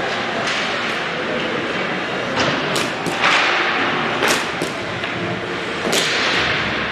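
Ice hockey play on the ice: about six sharp clacks of sticks and puck, several followed by a brief scrape of skates, over a steady rink background.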